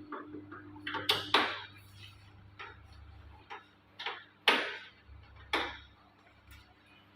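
Irregular sharp clicks and taps of a screwdriver working screws loose, about eight in all, the loudest about a second in and again past the middle.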